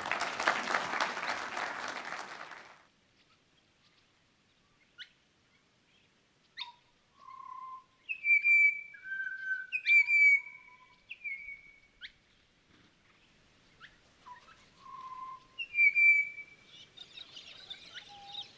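Audience applause that stops about three seconds in. After a short lull comes recorded birdsong: clear whistled bird calls at several pitches, some sliding slightly, with short sharp chips between them.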